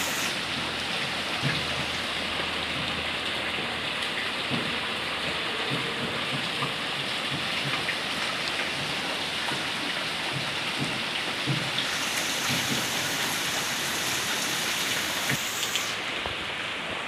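Heavy rain falling steadily onto puddled ground, with occasional soft thumps.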